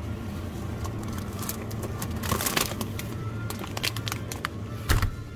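Thin plastic bag and packaging crinkling as they are handled, with one louder thump near the end, over a low steady hum.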